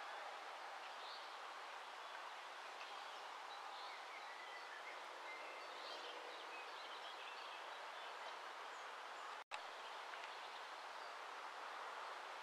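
Steady outdoor background hiss with faint, scattered bird chirps. The sound cuts out for an instant about nine and a half seconds in.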